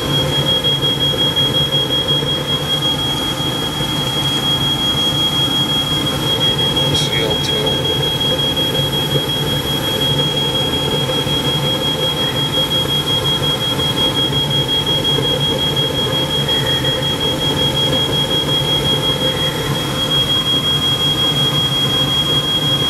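New Ruud 80-percent gas furnace running steadily, its burners firing and blower on, under a continuous high-pitched alarm tone. The tone is a smoke alarm, set off by the factory oil burning off the new furnace on its first firing.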